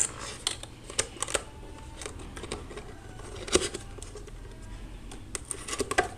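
Scattered light clicks and taps with faint rustling as a boxed LAN patch cable and its packaging are handled, with a cluster of clicks near the end.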